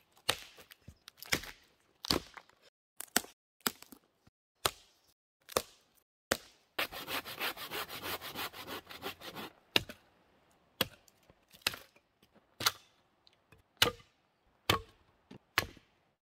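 Dry sticks cracking and snapping one after another as firewood is broken by hand and underfoot. About seven seconds in, a folding hand saw cuts through a branch in quick back-and-forth strokes for a few seconds.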